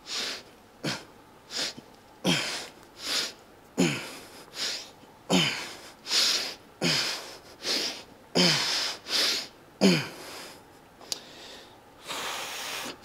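A man's forceful, rhythmic breathing through a dumbbell set: sharp breaths in and out about once every second or less, many exhales carrying a short falling grunt. Near the end there is a single click and then one longer blown-out exhale.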